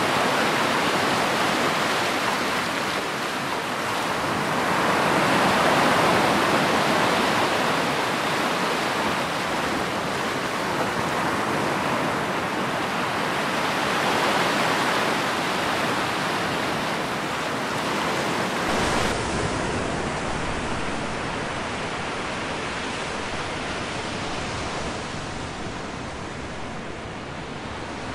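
Ocean surf: waves washing and breaking in a steady hiss that swells and eases. About two-thirds of the way through it changes abruptly to a deeper, rumblier wash of sea.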